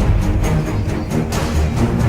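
Background music with a heavy low end and a steady beat.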